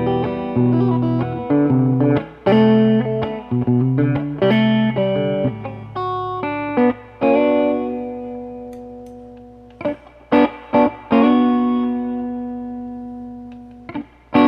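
Reverend Pete Anderson PA-1 electric guitar played through a Mesa Boogie 5:25 Express 1x10 combo amp. Quick picked chord phrases give way to a chord left ringing and slowly fading, then a few short stabs about ten seconds in and another long chord dying away.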